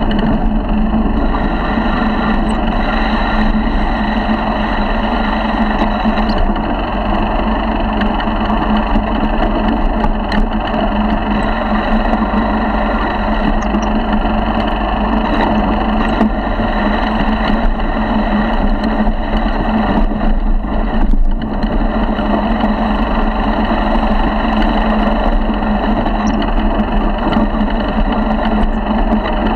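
A 50cc four-stroke motorized-bicycle engine running steadily under way, holding a near-constant pitch, with a brief dip about two-thirds of the way through.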